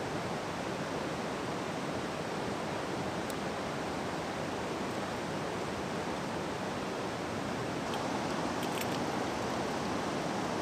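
Steady rush of river water running over stones, an even hiss with no change, with a few faint high ticks about a third of the way in and near the end.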